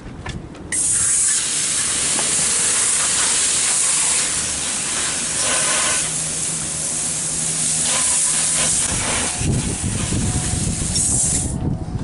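Garden hose spray nozzle hissing as fresh water is sprayed over a small outboard motor to rinse out the salt water it sank in. The spray starts abruptly about a second in, runs steady, and cuts off just before the end.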